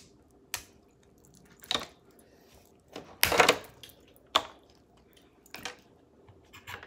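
Crab legs being cracked and picked apart by hand: a handful of short, sharp shell cracks and snaps, the loudest about three seconds in.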